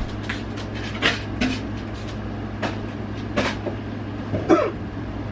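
A handful of short knocks and clatters, about six spread over five seconds, over a steady low hum.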